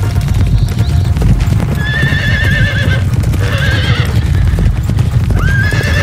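Large herd of horses galloping: a loud, dense drumming of many hooves, with horses whinnying three times, the first a long wavering call about two seconds in, the others around three and a half seconds and near the end.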